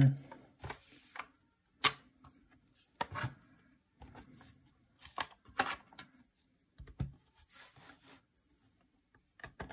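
Hard plastic graded-card slabs clicking and clacking as they are handled and set down on a table: a handful of sharp knocks spread through, with quiet between.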